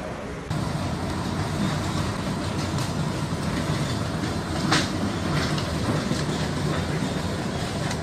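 Hurricane-force wind rushing steadily and buffeting the microphone, a dense low rumble that grows louder half a second in, with a sharp knock near the middle.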